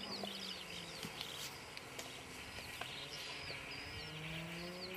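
Birds chirping over and over in quiet open-air ambience, with a faint low hum that rises slightly in pitch over the last couple of seconds.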